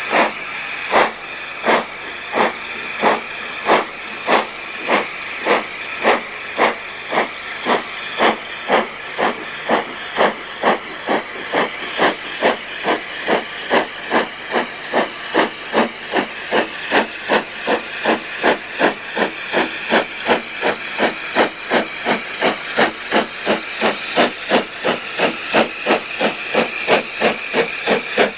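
Steam locomotive working hard uphill, its exhaust beats sharp and even, about two a second at first and slowly quickening as it gathers speed, over a steady hiss of steam.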